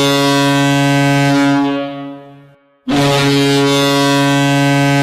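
Hockey arena goal horn blowing two long, steady blasts: the first fades out about two seconds in, and the second starts just before three seconds.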